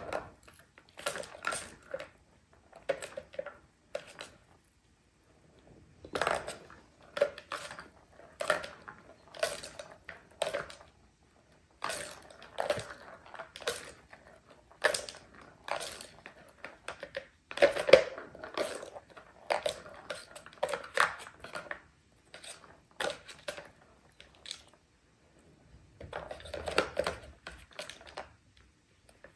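Plastic balls rolling and clattering around the tracks of a three-tier cat track-ball tower as kittens bat them, in irregular bursts of rattling with sharp clicks, separated by short quiet gaps.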